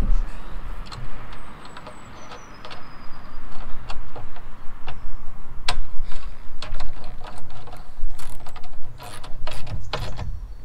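A socket ratchet clicking in short runs, with scattered metal clicks and knocks, as nuts are tightened onto the solar panel's mounting bolts on a metal roof rack.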